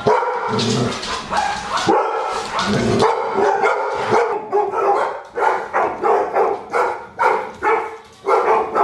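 A retriever barking over and over. From about halfway through, the barks settle into a steady run of about three a second.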